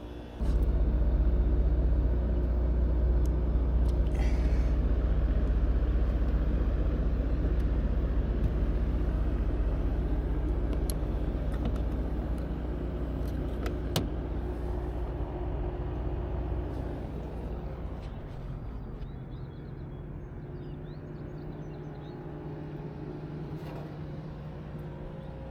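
Rooftop air-conditioning unit kicking on in cooling test mode: the compressor starts abruptly and runs with a steady low hum, easing somewhat in loudness over the second half.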